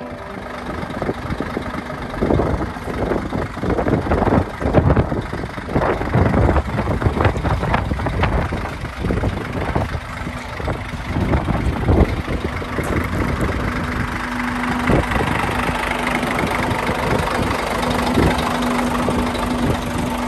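Scania 114C 340 tanker's 11-litre six-cylinder diesel engine idling, with irregular knocks and clatters over it in the first half.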